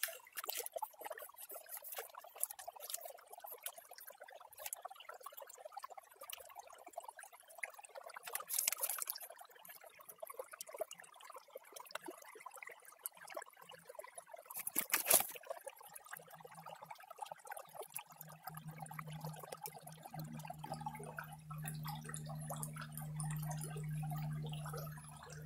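Water sloshing and trickling as gravel is washed in a blue plastic gold pan in shallow creek water, with two louder splashes of water pouring out of the pan partway through. A steady low hum comes in near the end.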